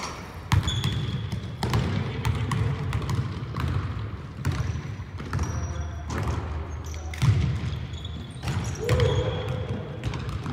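Basketball bouncing on a hardwood gym floor during play: irregular sharp bounces about a second apart, echoing in the large hall.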